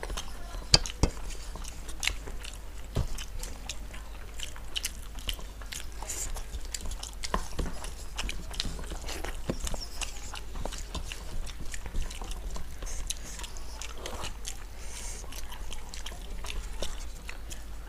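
Close-up eating sounds: two people biting into fried brinjal pakoda and chewing, while fingers mix rice on steel plates. A steady string of short clicks and crunches runs through it, the sharpest a little under a second in.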